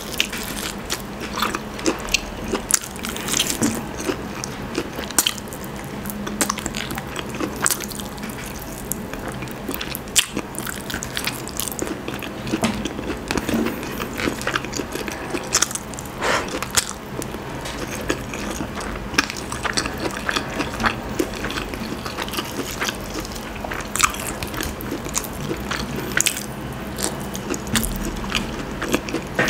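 Close-up eating sounds: chewing, with frequent short mouth clicks and smacks, as grilled chicken and rice are eaten by hand.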